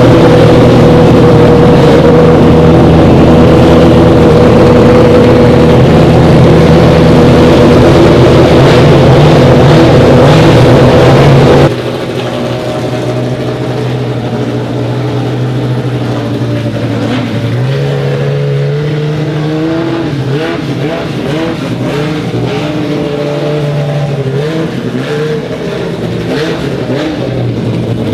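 Race car engine running at a loud steady idle; about 12 seconds in the sound drops abruptly, and afterwards the engine's pitch rises and falls, with one step up a few seconds later.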